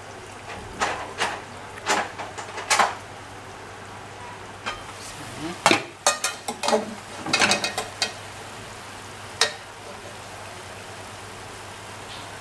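Metallic clanks of an aluminium pot lid being handled, then a metal slotted spoon clanking and scraping as it stirs pieces of lamb in the aluminium pot, most busily about six to eight seconds in.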